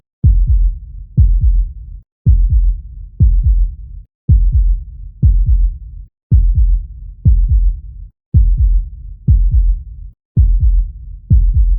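Heartbeat sound: deep lub-dub beats at a steady pace of about one a second. The track is looped, with a brief dropout every two seconds.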